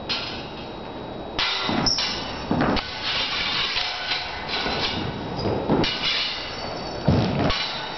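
A quick, irregular run of sword blades clashing, each hit with a short metallic ring, among thuds and scuffles of a fight.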